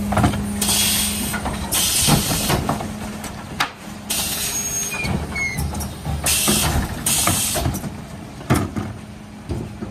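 Zoeller bin lifter on a Mercedes Econic refuse truck with a Faun Variopress body lifting, tipping and lowering two wheelie bins. Repeated short bursts of hissing air mix with clanks and knocks of the bins and the lifter. A steady hum from the truck stops about two seconds in.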